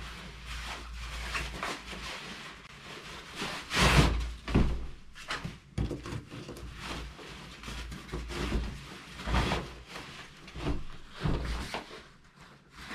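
Rustling, knocks and thumps of a large hiking backpack being handled and packed, with a loud thump about four seconds in.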